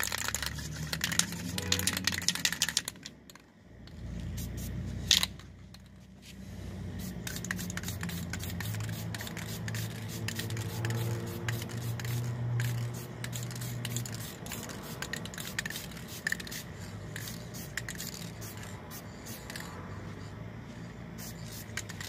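Aerosol spray-paint can being used on a car body panel: rattling clicks and hissing spray. There is a sharp click about five seconds in, and a low hum for several seconds in the middle.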